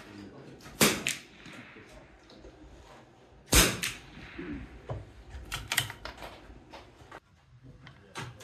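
Scattered .22 LR rimfire gunshots from several shooters along a firing line, sharp cracks at uneven intervals. The two loudest come about a second in and near the middle, with fainter shots between and after.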